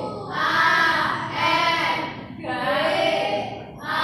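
A group of voices in unison, chanting in a sing-song way in three long, drawn-out syllables of about a second each.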